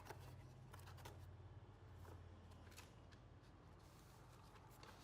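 Near silence: a few faint clicks and light rustles of paper being handled and loaded into the printer, over a low steady hum.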